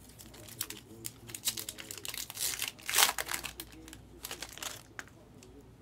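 Foil wrapper of a trading-card pack crinkling as it is handled and torn open, with the loudest crackle about three seconds in.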